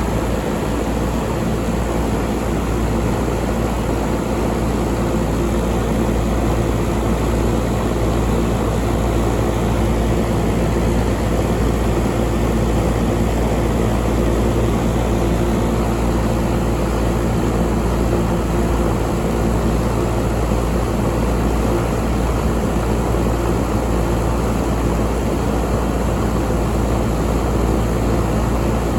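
York 5-ton air conditioner running steadily: an even hum with steady low tones under the rush of its fan.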